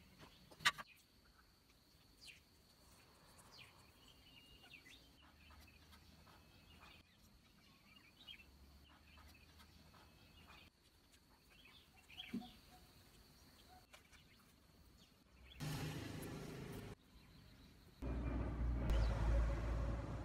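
Quiet outdoor ambience with scattered faint bird chirps and a sharp click under a second in. About two seconds before the end a much louder low rumble sets in.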